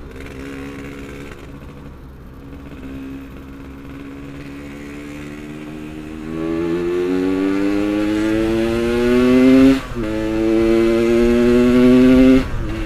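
Yamaha RX-King's two-stroke single-cylinder engine accelerating through the gears. The note runs low at first, then climbs steadily and grows louder. It drops suddenly at an upshift about ten seconds in, climbs again, and drops at another shift near the end.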